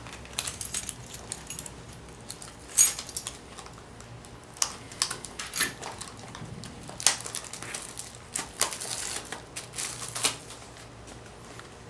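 Stiff clear plastic trading-card pack being worked open by hand: an uneven run of sharp crinkling crackles and clicks, the loudest about three seconds in.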